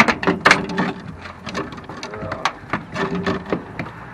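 Reeling in and landing a small largemouth bass: a quick run of irregular clicks and splashes from the fishing reel and the hooked fish.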